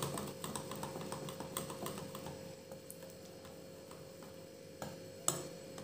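Wire whisk mixing thick cake batter in a bowl, its wires ticking lightly against the bowl in quick small clicks that thin out after about three seconds, then a couple of sharper taps near the end.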